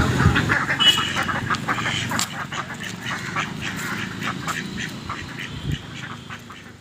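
Ducks quacking in a rapid, overlapping series of short calls that fade away toward the end.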